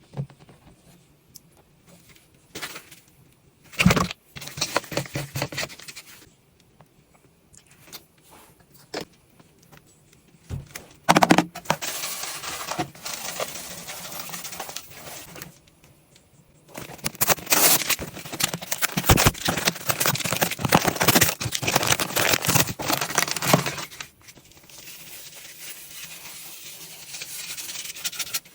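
Washing powder and washing gel being handled for ASMR: clicks and knocks from containers, then long stretches of granules pouring and scraping with a dense crackle, easing to a softer steady hiss near the end.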